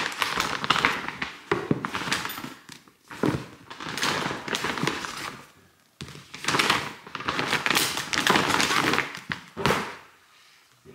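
Handling noises: a series of rustling, scraping bursts, each a second or two long, with sharp knocks among them, dying away near the end.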